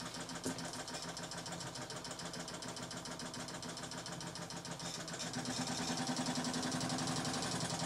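A Montgomery Ward Supreme Reversible Rotary sewing machine (National Sewing Machine Co. RBR-2W) running under its semi-built-in friction-drive motor. It gives a fast, even machine rhythm over a steady hum, and runs faster and louder from about five seconds in.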